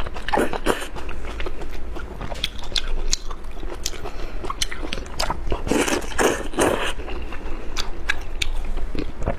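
Close-up mouth sounds of eating hot and sour sweet potato starch glass noodles: chewing with many wet clicks and smacks, and slurps about half a second in and again around six seconds in.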